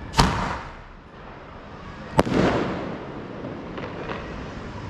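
Lima Fireworks Hi 5 five-shot sky shot firing: two sharp bangs about two seconds apart, each trailing off in an echo, then a few faint pops near the end.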